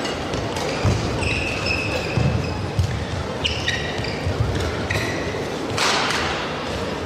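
Badminton doubles rally: sharp racket-on-shuttlecock hits, court shoes squeaking briefly and repeatedly on the court mat, and heavy footfalls of the players landing, over steady crowd noise in a large arena.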